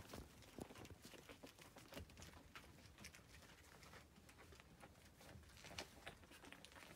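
Near silence: room tone with faint, scattered clicks and taps.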